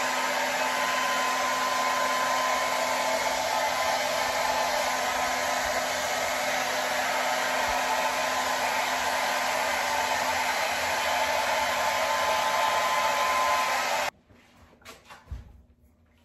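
Handheld hair dryer running steadily, a rush of air over a steady motor hum, used to blow poured acrylic paint around; it switches off abruptly about two seconds before the end.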